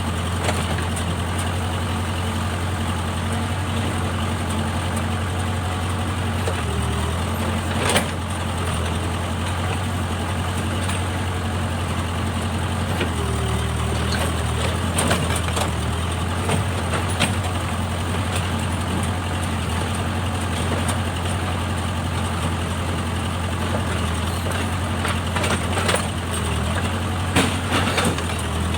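Backhoe loader's diesel engine running steadily, with a low drone and scattered sharp knocks and clanks, the loudest about eight seconds in and a couple more near the end.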